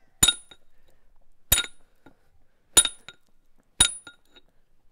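Hammer striking a hand-forged steel pitching chisel held against the edge of a stone block: four sharp blows about a second apart, each with a short metallic ring. The chisel is breaking away the stone's sawn edge to remove the saw marks.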